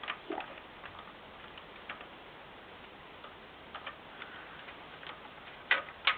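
LEGO plastic pieces clicking and tapping as they are handled and pressed together, at an irregular pace, with two sharper clicks near the end.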